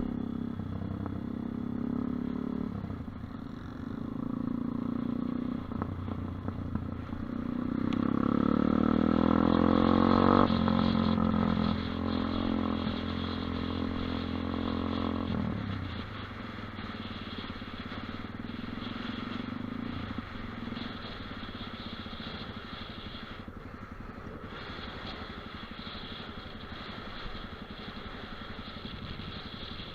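Dirt bike engine running under way. It revs up, with the pitch climbing to its loudest about a third of the way in, holds there for several seconds, then eases off to quieter, steadier running for the rest.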